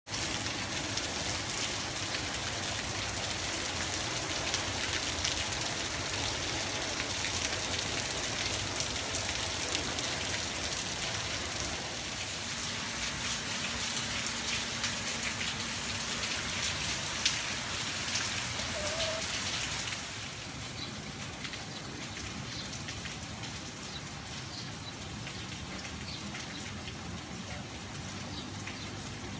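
Steady rain falling on a paved street and plants, a dense hiss of drops. About twenty seconds in it turns quieter and duller.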